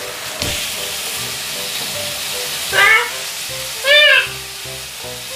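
Sliced pork sizzling as it is stir-fried in a frying pan, under background music. About three and four seconds in, two short high-pitched cries, each rising then falling, stand out as the loudest sounds.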